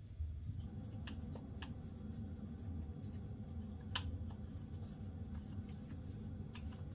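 Small clicks and taps from handling a vintage aluminium baitcasting reel, about five over several seconds, the sharpest about four seconds in, over a low steady rumble.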